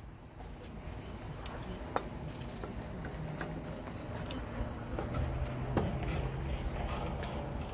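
Scattered light clinks and knocks of metal and glass kitchenware being handled, over a low hum that grows louder from about three seconds in.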